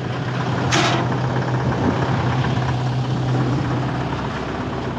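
Link-Belt 145X4 excavator's diesel engine idling steadily, with a brief hiss about a second in.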